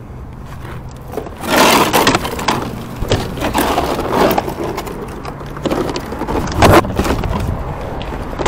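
Plastic front bumper cover of a 2021 Hyundai Elantra being picked up and handled, giving a run of irregular scrapes and rattles with a sharp knock nearly seven seconds in, over a low steady rumble.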